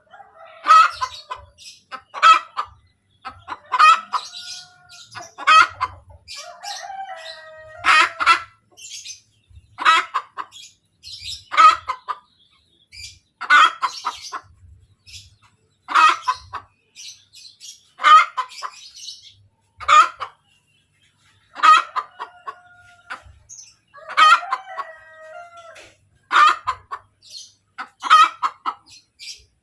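Hen's egg-laying cackle: loud, sharp clucking calls repeated about every two seconds, several of them ending in a drawn-out note, the call a hen gives after laying an egg.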